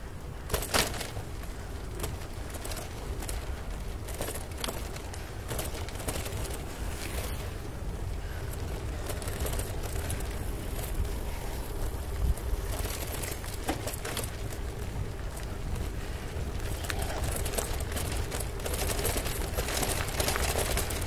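Bicycle riding along a paved trail, heard from a bike-mounted camera: a steady low rumble of wind on the microphone and tyre noise, with scattered clicks and rattles from the bike.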